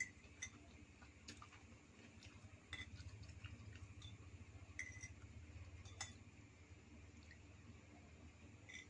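Faint, scattered clinks of kitchen utensils against dishes or cookware, a dozen or so light taps, some with a short ring. A low hum runs underneath and grows a little louder in the middle.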